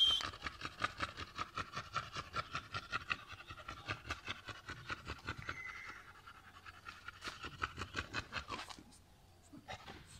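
Chongqing dog panting with its tongue out, quick even breaths about four a second, which stop near the end.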